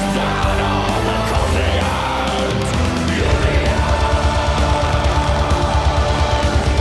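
Loud heavy rock music with sustained chords. About three seconds in, a fast, pounding low beat starts.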